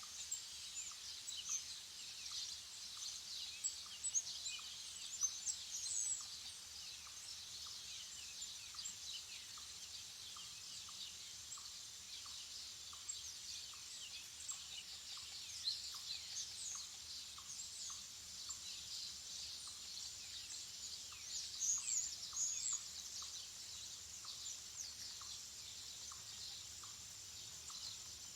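A dense chorus of many small birds chirping and twittering at once, with louder clusters of calls about four to six seconds in and again a little past twenty seconds. A faint steady high hiss and a faint regular ticking run underneath.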